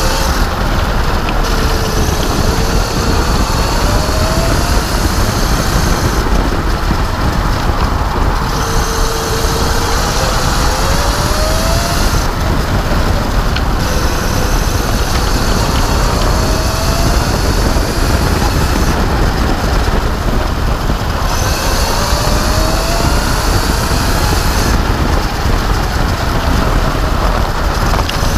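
Electric racing kart's motor whine, rising in pitch several times as it accelerates out of corners and dropping back as it lifts, under heavy wind rumble on the onboard camera.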